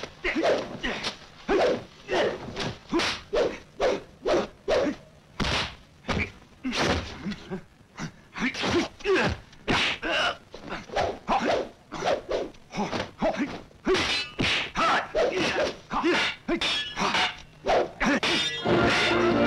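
Rapid series of kung fu film punch and kick sound effects: hard whacks and thuds about two or three a second, a little sparser in the middle. Orchestral score comes in near the end.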